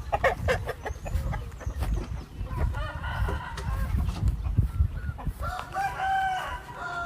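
Gamefowl roosters crowing and clucking: a few short clucks at the start, a call about three seconds in, and a longer crow of about a second near the end, over a low rumble.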